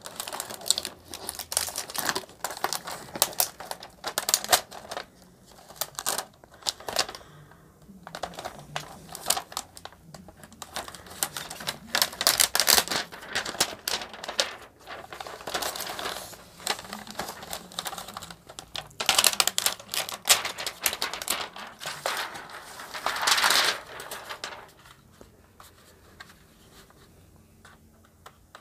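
Clear plastic packaging sheet crinkling and rustling, with irregular clicks and knocks as a router is handled and lifted out of its box. The noise comes in bursts and dies down about four seconds before the end.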